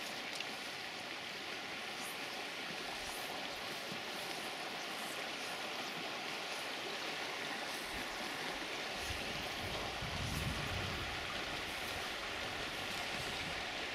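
Steady rush of running water from a small forest stream, with a brief low rumble about ten seconds in.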